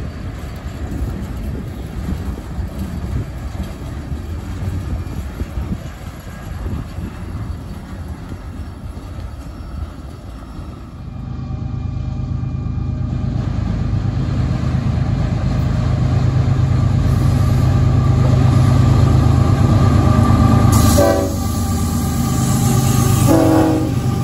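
Freight cars rumbling and clacking over the rail joints as a train rolls past. About eleven seconds in, the drone of approaching diesel freight locomotives takes over and grows steadily louder. Near the end the lead locomotive sounds its air horn in short blasts as it draws alongside.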